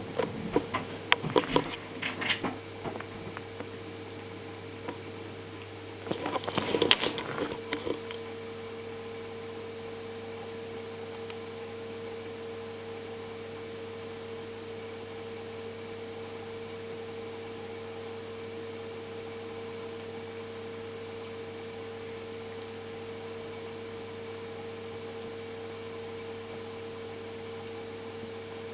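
Steady electrical-sounding hum, with bursts of scratchy clicking and rustling in the first few seconds and again around six to eight seconds in.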